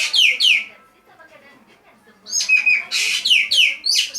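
Green magpie (ekek geling) singing loud bursts of shrill whistles and quick downward-sweeping notes. One phrase ends about a second in, and another starts after a short pause, just past two seconds.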